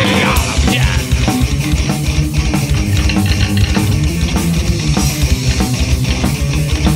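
Instrumental heavy metal: distorted electric guitars and bass over a steady drum beat, with no singing.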